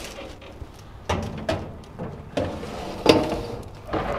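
Metal baking tray sliding into a countertop electric oven, scraping and clanking against the rack several times, loudest about three seconds in. The oven's hinged glass door swings shut near the end.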